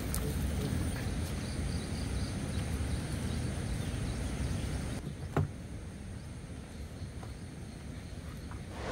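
Outdoor ambience: a steady low rumbling noise with faint insect-like chirping, broken once about five seconds in by a single sharp knock.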